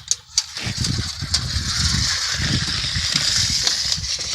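Steel blade of an 8-metre tape measure being pulled steadily out of its case: a continuous hiss starting about half a second in, with low handling noise underneath.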